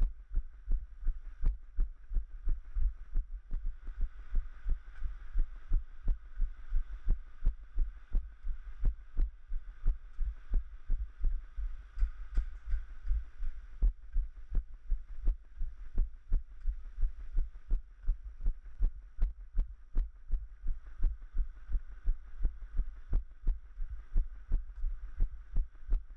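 A runner's footfalls, heard as low thuds about three times a second through a body-mounted camera jolted with each stride. Under them runs the faint rush of fast water in the canal beside the trail, swelling a few seconds in and again near the end.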